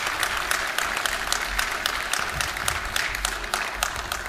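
Audience applauding, many hands clapping at once in a dense, steady run.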